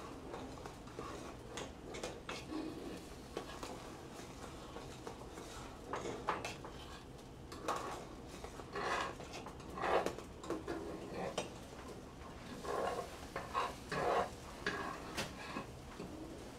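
Metal utensils scraping and clinking against a skillet of eggs and a large steel stockpot of sausage gravy as both are stirred, in short irregular strokes.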